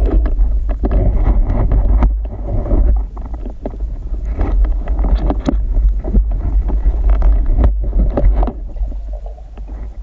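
Muffled water movement picked up by a camera during a spearfishing dive: a deep, steady rumble with scattered knocks and clicks.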